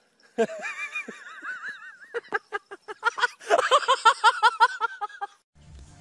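A person laughing: a high, wavering giggle at first, then quick, loud bursts of laughter about halfway through, which stop suddenly shortly before the end.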